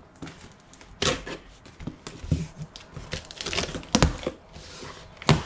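Cardboard shipping box being opened: packing tape slit with a small metal dab tool, with irregular scraping and rustling of cardboard and several sharp knocks, the loudest about four seconds in and just before the end.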